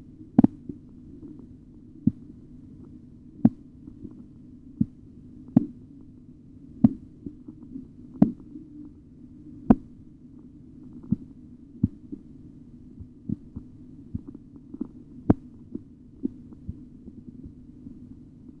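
Korotkoff sounds heard through a stethoscope during an auscultatory blood pressure reading: sharp taps of the pulse about every one to one and a half seconds, uneven in loudness and spacing, over a low steady hum.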